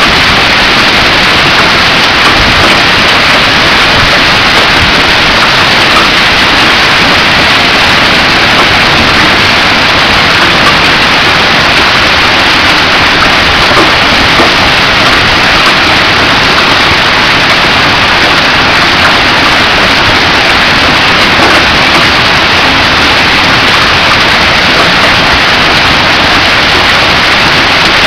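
Hailstorm: hail and heavy rain pelting the ground, street and trees, a loud, dense, steady hiss.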